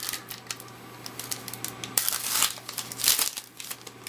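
Trading card pack wrapper crinkling and being torn open, in short rustling bursts, with two louder ones in the second half.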